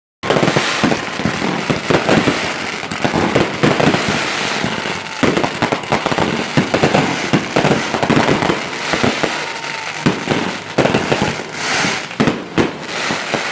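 Fireworks going off in a dense, continuous run of rapid crackling pops and bangs.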